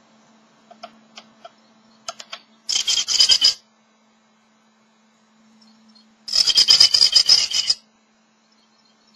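Great tit in a wooden nest box scraping and rustling the moss and grass of its nest. A few light taps come first, then two bursts of rapid rasping strokes; the second burst is longer, about a second and a half.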